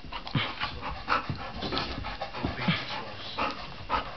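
Dog panting in quick, irregular breaths during rough play.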